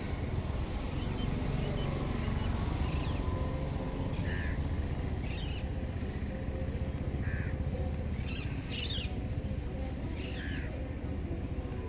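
Outdoor background with a steady low rumble, and a bird giving a short call about every three seconds.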